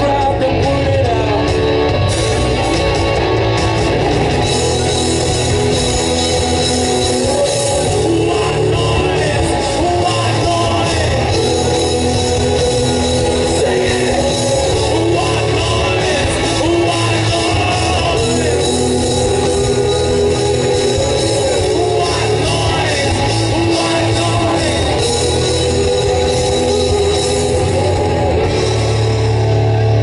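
Live rock band playing loud: electric guitars, bass and drums with a male lead singer, heard from the crowd in front of the festival PA.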